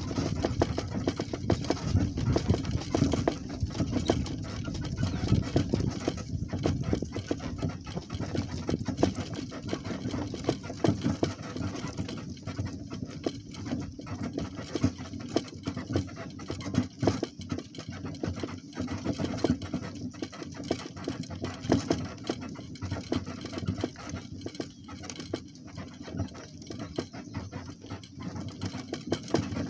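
A donkey and a person walking over farm ground: irregular footfalls and rustling over a steady low rumble on the microphone.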